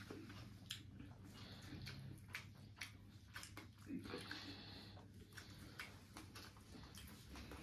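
Faint eating sounds: a person chewing a mouthful of rice and curry, with scattered small mouth clicks and smacks.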